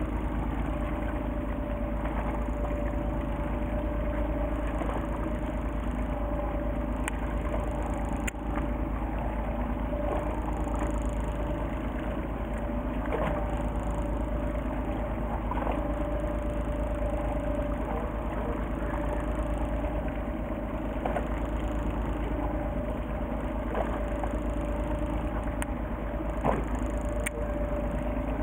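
Fishing boat engine running steadily, a low drone with one steady hum, and a few faint clicks over it.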